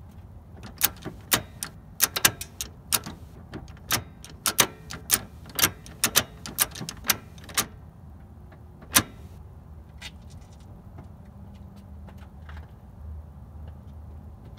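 Manual-transmission shift linkage of an 8th-generation Honda Civic, fitted with new Acuity aluminum shifter bushings, clicking and clunking as it is worked through the gears. There are about twenty sharp clicks over seven seconds, then one more a little later.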